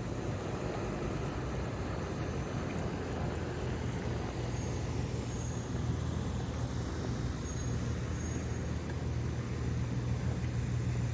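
Steady low hum of a motor vehicle engine running, with an even wash of road noise and no sudden events.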